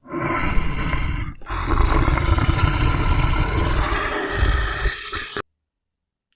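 A large animal roaring: a short roar, then a longer one of about four seconds, heavy in the low end, which cuts off suddenly.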